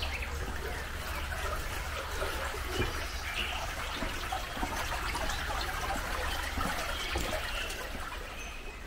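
Shallow water trickling steadily along a small stone-lined channel.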